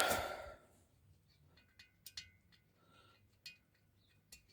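A few faint, sharp clicks and clinks of a hand tool working on the small fasteners of a diesel heater's burner casing.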